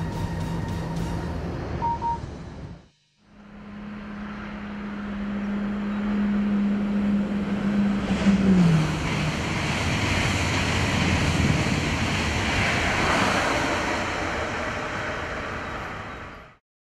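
Swiss Re 460 electric locomotive with IC 2000 double-deck coaches passing at speed. A steady electric hum drops in pitch as the locomotive goes by, about eight seconds in, under a rush of running noise that swells and then fades away near the end. Before it, a short stretch of train running noise cuts off abruptly about three seconds in.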